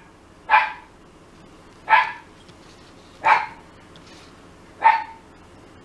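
A dog barking four times, about a second and a half apart, each bark short and sharp.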